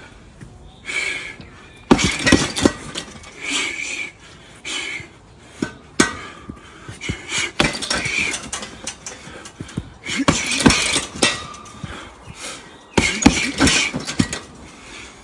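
Punches and kicks landing on a hanging heavy bag in quick combinations of two or three thuds, each with a short hissed breath. The combinations come about every two to three seconds.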